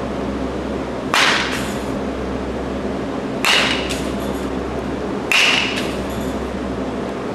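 Baseball bat hitting pitched balls three times, about two seconds apart, each a sharp crack with a brief metallic ping, over a steady hum.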